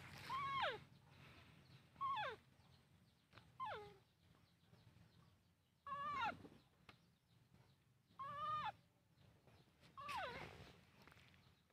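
Baby monkey crying with six short, high calls about two seconds apart, most sliding down in pitch.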